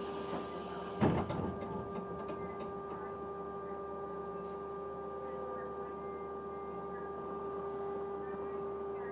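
Bus 82060's weird noise: a steady hum held at one constant pitch. A short knock sounds about a second in.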